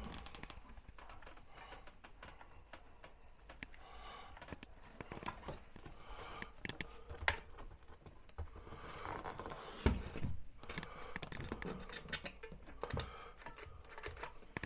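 Irregular light tapping, clicking and rustling of hands working cardboard and tape, with a few louder knocks about ten seconds in.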